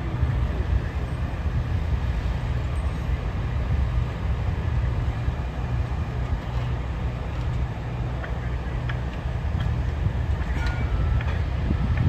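Construction-site diesel engine running steadily with a low, even rumble. A few faint clicks come in near the end.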